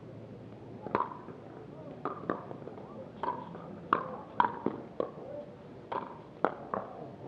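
Pickleball rally: a string of sharp, hollow pops from paddles striking the plastic perforated ball and the ball bouncing on the hard court, about a dozen irregular hits that come faster in the middle.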